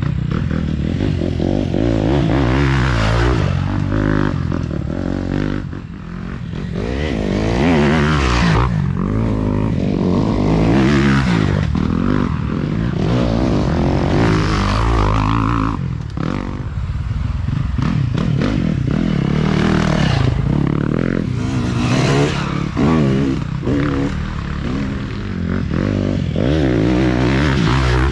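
Off-road dirt bike engines revving hard as several bikes ride past one after another on a dirt trail, the engine note rising and falling with throttle and gear changes.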